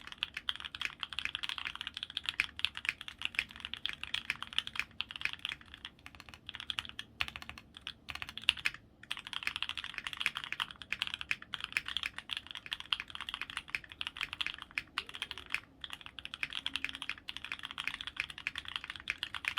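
Continuous fast typing on a Makers Keyboard Phantom custom mechanical keyboard with an FR4 plate, foam-modded, fitted with lubed and filmed HHHH H1 switches and GMK keycaps. The keystrokes come in a dense, rapid stream, with a brief pause about nine seconds in.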